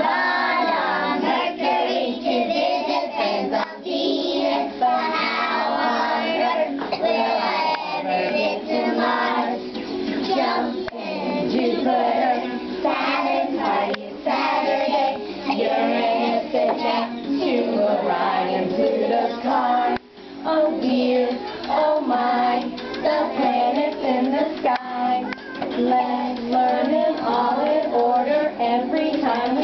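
A group of young children singing a song about the planets together, with musical accompaniment.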